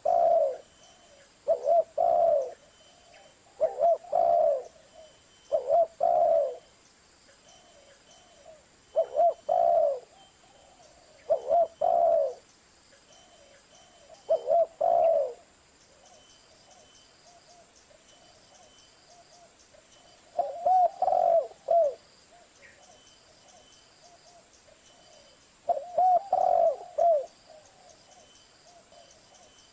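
Spotted dove (tekukur) singing: a run of low, about one-second cooing phrases repeated every two to three seconds, with a couple of longer pauses in the middle.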